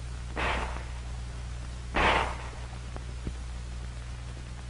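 Two handgun shots about a second and a half apart, the second louder, over a steady low hum from the old film soundtrack.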